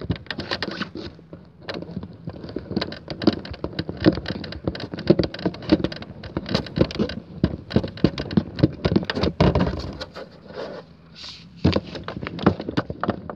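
Paper rustling and crinkling as it is handled and pressed onto a box, a dense run of crackles with a short lull a little past two thirds of the way through.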